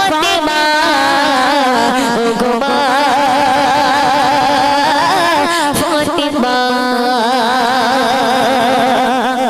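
Woman singing a Bengali gojol, an Islamic devotional song, into a microphone: one continuous melody with wavering, ornamented pitch and long held notes.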